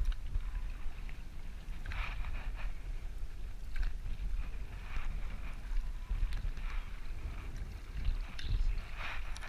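Canoe paddle strokes splashing into the water about every one and a half to two seconds, over a steady low rumble of wind on the microphone.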